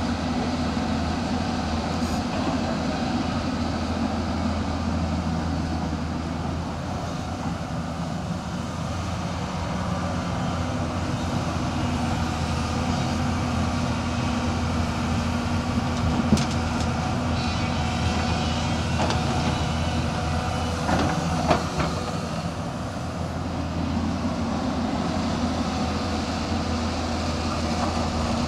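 Hyundai 215L crawler excavator's diesel engine running steadily while it digs and swings, with a sharp knock about sixteen seconds in and two more about five seconds later.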